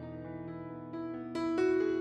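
Background piano music: struck notes with sustained chords, a new note about a second in and a louder chord soon after.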